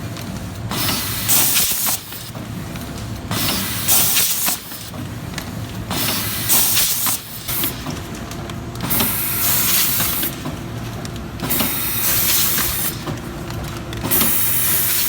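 Automatic rotary pouch-packing machine running through its cycle: a steady mechanical hum with a burst of hiss about every two and a half to three seconds.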